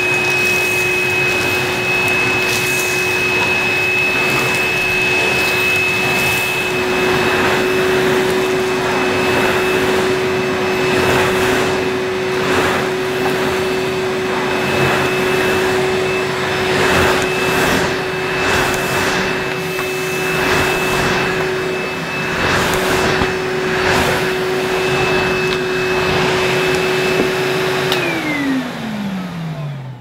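Henry Cordless battery vacuum cleaner running steadily with a constant motor whine over the rush of suction, with scattered crackles as dirt is sucked up through the floor tool and hose. Near the end it is switched off and the motor winds down, its pitch falling away.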